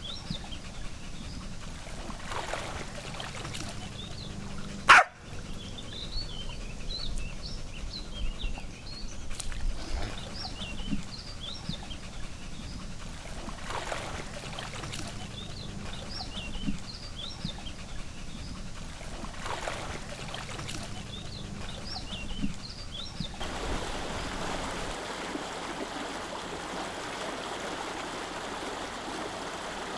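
Short, high squeaky calls in scattered clusters over a low background, with one sharp loud click about five seconds in. About 23 seconds in, this gives way to the steady rush of water churned by an electric trolling motor.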